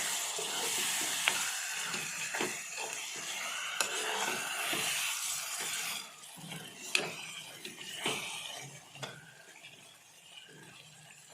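Vegetables and a fresh coconut-ginger-garlic-chili paste being stirred in a hot oiled pan: sizzling, with the utensil scraping and knocking against the pan now and then. About six seconds in, the sizzling drops away, leaving a few scattered knocks.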